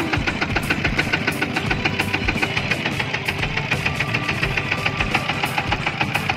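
Fishing boat's engine running steadily, with a rapid, even knocking beat over a low rumble.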